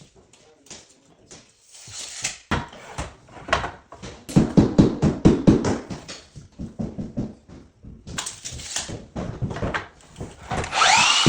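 An irregular series of knocks and taps, heavier and closer together about four to six seconds in.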